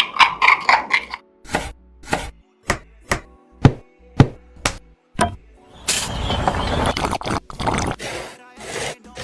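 A run of single sharp knocks, about two a second, like small tool strikes, followed about six seconds in by a few seconds of continuous scraping or rubbing.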